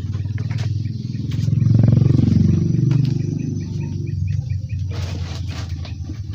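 A small engine running steadily, growing louder about two seconds in and then easing off, with a few sharp knocks of bamboo poles being handled.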